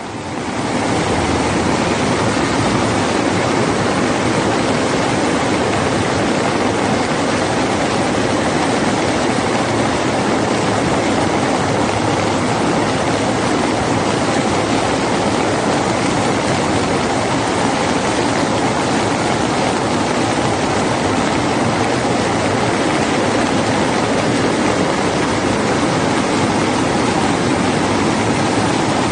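Fast-flowing floodwater rushing in a steady, unbroken noise that starts about half a second in.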